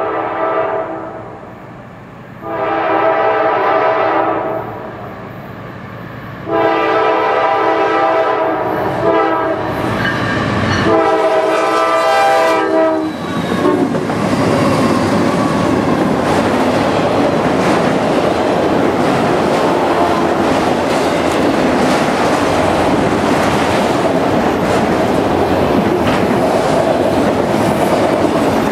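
Diesel freight train led by GE Dash 9-44CW locomotives sounding its air horn in a series of long blasts for a grade crossing, the last ending as the locomotives pass about 13 seconds in. Then the steady rolling rumble and clickety-clack of autorack cars going by at speed.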